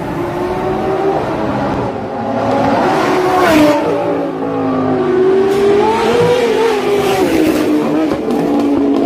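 A car's engine revving hard as it accelerates past at speed, its pitch climbing and falling back several times, loudest as it passes about three and a half seconds in.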